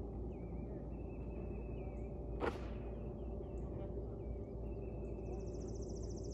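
Steady outdoor rumble with faint bird chirps, and one sharp crack from the roofing work on the house about two and a half seconds in. A fast, high trill comes in near the end.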